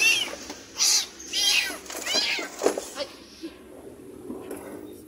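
Kitten meowing repeatedly, high-pitched cries about five times in the first three seconds, then quieter.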